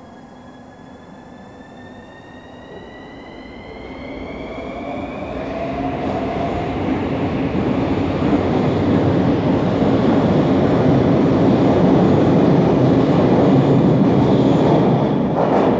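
CAF electric metro train pulling out of the station and accelerating. The traction motors' whine rises in pitch over the first few seconds, then a growing rumble and rush of wheels on rail takes over as the cars pass close by, loudest in the second half.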